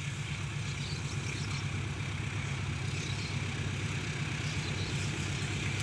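Diesel locomotive engine running under throttle as the train approaches, a steady low drone: it is pulling on a slight upgrade.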